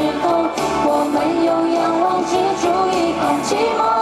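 Live pop song through a stadium sound system: a melody holds long, wavering notes over a full band backing with drums and cymbals.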